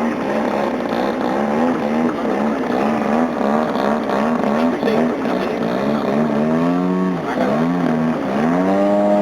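Large radio-controlled stunt plane's engine and propeller running in flight, the pitch swooping up and down over and over. Near the end the pitch dips sharply twice, then settles to a steady, higher note.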